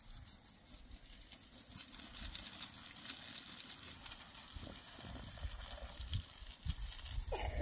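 Water spraying from a garden hose onto stones, a steady hiss and splatter. A short higher-pitched sound comes near the end.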